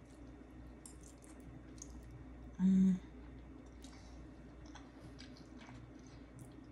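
Close-up eating sounds: a fork in a paper bowl of spaghetti, with soft chewing and mouth clicks. About two and a half seconds in, one short, loud, steady-pitched hum.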